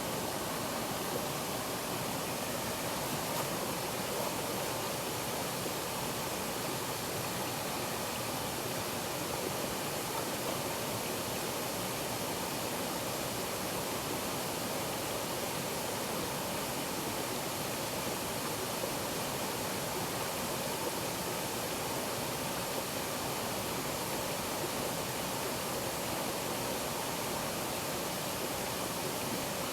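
Waterfall: water pouring and splashing in a steady, even rush with no change in level.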